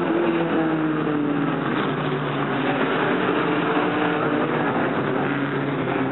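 Several dirt-track stock car engines running hard at once as the pack races round the oval, their pitches rising and falling as cars accelerate and lift.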